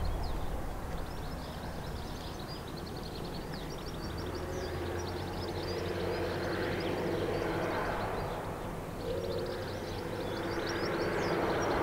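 Distant trains running at a junction: a steady low hum with a rumble that swells about halfway through, dips, and builds again near the end. Small birds chirp throughout.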